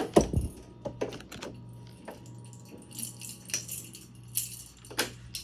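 A string of sharp metal clicks and clinks with keys jangling, as the door of a fire alarm pull station is put back in place and locked with its key.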